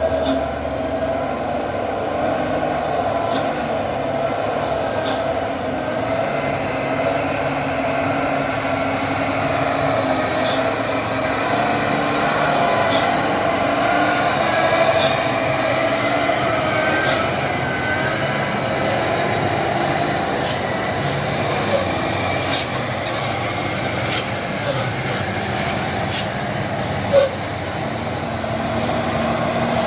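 Heavy diesel dump truck engine running steadily on a steep hill road, with a sustained whine over it and scattered sharp clicks.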